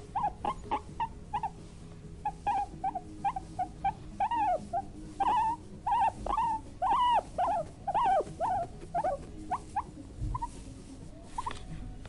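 Guinea pig squeaking: a run of short, high squeaks that arch up and down in pitch, several a second, growing longer and louder in the middle and thinning out near the end.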